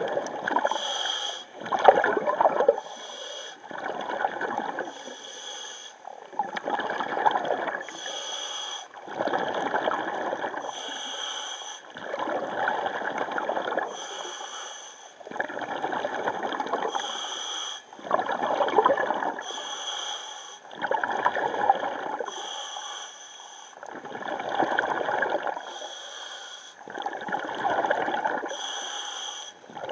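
Scuba diver breathing through a regulator underwater, about a dozen breaths, roughly one every two and a half seconds. Each breath is a short hissing inhale with a thin whistle, followed by a longer gurgling rush of exhaled bubbles.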